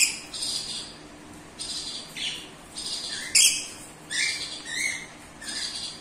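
Rainbow lorikeet calling: a run of short, high-pitched calls repeated every half second to a second, the loudest about three and a half seconds in.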